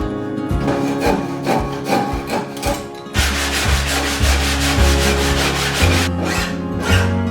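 Upbeat background music; about three seconds in, a power sander starts running against wood under the music for about three seconds, a dense hiss over a low motor hum, then stops.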